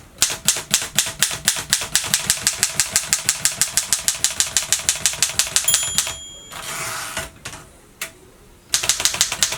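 1937 Erika M portable typewriter typing rapidly in letter-spaced mode, about seven type-bar strikes a second. About six seconds in, a short bell-like ring sounds, followed by a brief rasp and a click, then another quick run of keystrokes near the end.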